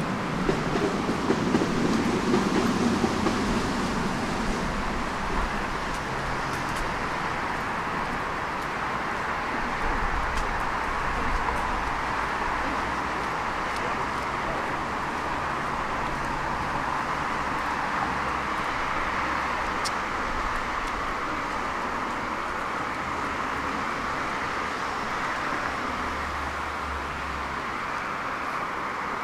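Tram running along its rails: a steady rolling rumble of wheels on track, with a low hum that comes and goes. It is louder for the first few seconds.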